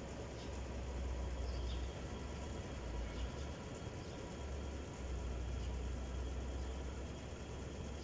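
Low outdoor background rumble that swells and drops every second or two, with a few faint, brief high chirps from small birds.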